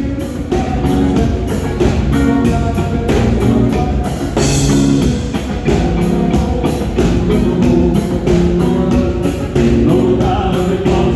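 A band playing with a drum kit keeping a steady beat and regular cymbal strokes under sustained chords.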